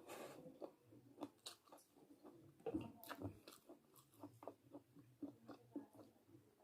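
Someone eating, with soft, irregular chewing clicks and mouth smacks about two or three a second, a little louder about three seconds in.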